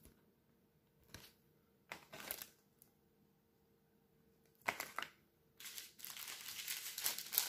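A rolled diamond-painting canvas crinkling as it is handled, unrolled and laid flat: a few short rustles, then steady crinkling from about halfway through.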